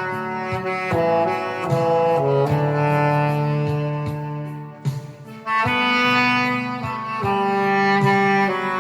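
Saxophone playing a slow, sustained melody line over a backing track with a steady beat, with a short break in the phrase about five seconds in.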